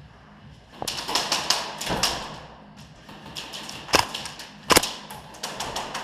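Airsoft guns firing: runs of sharp clacking shots, with the two loudest cracks about three-quarters of a second apart in the middle.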